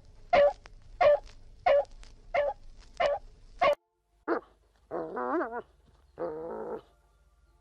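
Dog barking in a steady run of six barks, about one every two-thirds of a second. The barking cuts off and is followed by a short yelp and two wavering, whining cries.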